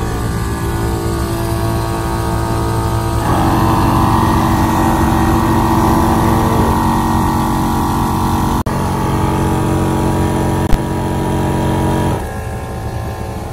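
Ironman Air Champ Pro 12 V portable air compressor running steadily while it inflates a 4x4's tyre: a loud, even motor hum with a clear pitch. It grows fuller for most of the middle and drops back near the end. Two sharp clicks come late on, the second louder.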